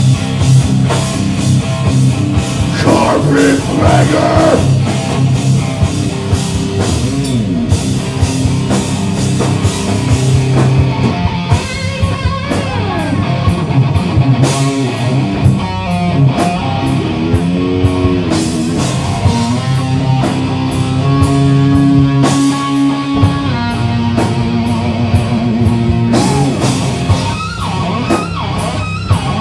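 A rock band playing live and loud: electric guitar and bass over a drum kit hitting steadily, heavy-metal in style.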